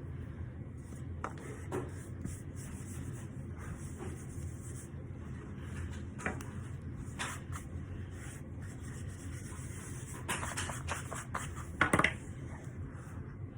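Scattered soft crackles and rubbing from powdery cornstarch being handled and bitten, with a louder crunch about twelve seconds in.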